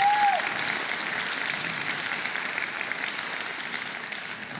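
A congregation applauding, the clapping slowly dying away.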